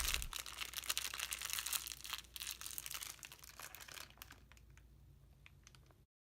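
Crinkling, crackly rustle of craft materials being handled, full of small sharp clicks. It fades over the last few seconds and cuts off to silence near the end.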